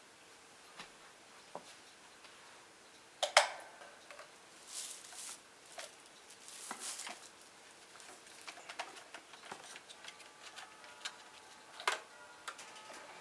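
Scattered clicks and knocks, the loudest a sharp knock about three seconds in, with a few short rustling swishes. A faint steady tone comes in about ten seconds in.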